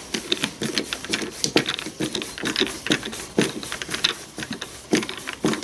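Hand screwdriver turning screws into the plastic housing of a battery chainsaw: a run of quick, irregular clicks and ticks.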